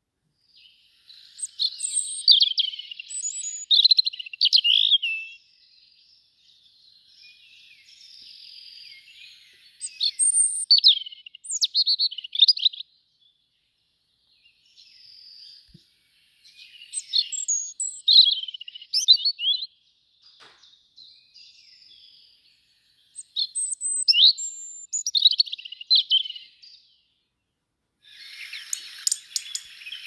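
Songbird song at a garden feeder: four loud phrases of quick, varied high notes separated by pauses, with softer notes in between. Near the end a denser, busier sound sets in.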